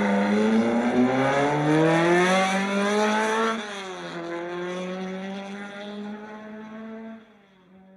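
Car engine accelerating, its pitch climbing for about three and a half seconds. Then it drops at a gear change and runs on more quietly before fading out near the end.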